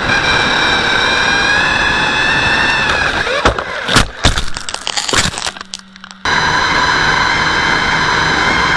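Electric RC truck running at speed with a steady high motor and gear whine, heard from its onboard camera, then crashing and tumbling: a cluster of sharp knocks and clatter, the loudest about four seconds in. After a short quieter stretch with a low hum, the whine cuts back in abruptly.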